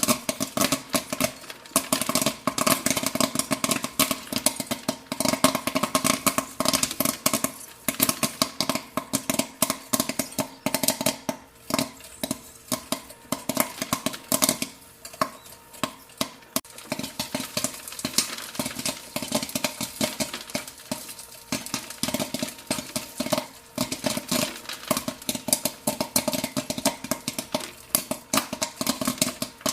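Popcorn kernels popping in rapid, dense bursts of sharp pops, thinning out for a few seconds midway before picking up again, over a steady machine hum.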